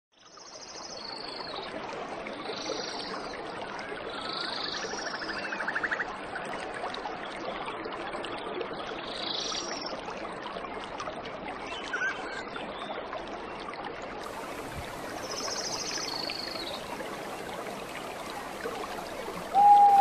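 Water flowing and trickling steadily, with birds calling over it: short high chirps repeated every few seconds and a brief buzzy trill. A louder short low call sounds near the end.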